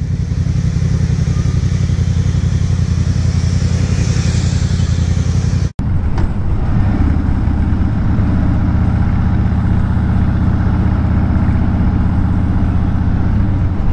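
Motorcycle engine running steadily with a low, even note, broken by a sudden brief dropout about six seconds in; after it, a cruiser motorcycle's engine carries on steadily at highway speed.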